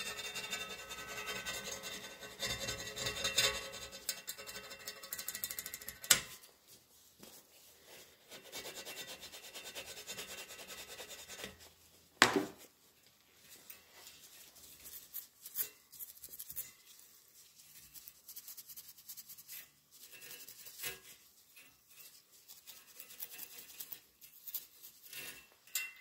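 Abrasive pad scrubbed back and forth over a Zinser metal ring rail around its tube holes: a rough, scraping rub, strongest in the first six seconds and again from about eight to eleven seconds. Two sharp knocks come about six and twelve seconds in, followed by lighter, broken rubbing and small taps.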